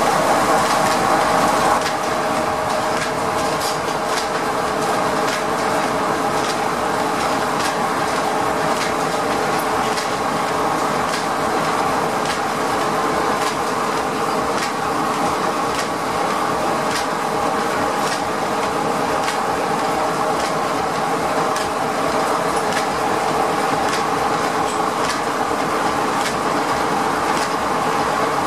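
Steam-powered sawmill machinery running: a single-cylinder steam engine turning the belts, pulleys and big circular saw, giving a steady clattering hum with light ticks now and then. It is a little louder for the first two seconds.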